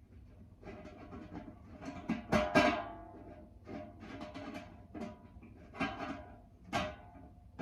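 Irregular metal knocks and clanks with a short ringing after each, as tools and bearing-kit parts are handled against a tumble dryer's sheet-steel drum and casing; the loudest cluster comes about two and a half seconds in.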